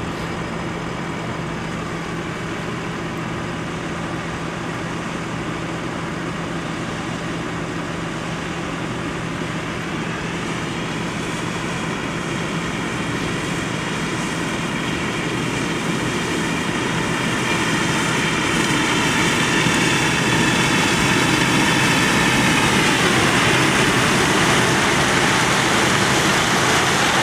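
Harvest machinery, a combine harvester and a tractor, running steadily in a maize field. The sound grows louder as the machines draw nearer, and the pitch bends around ten seconds in and again near the end.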